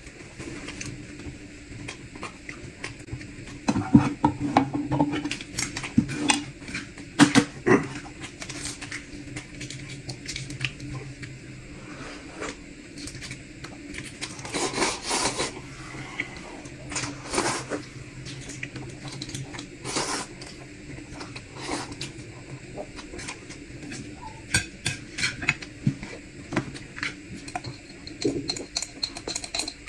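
Eating at a table: utensils clinking and knocking on bowls and plates at irregular moments, along with chewing.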